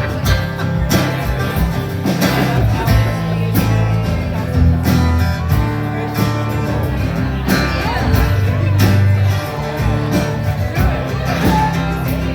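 Instrumental band passage led by plucked guitar over a steady bass line and beat, without vocals.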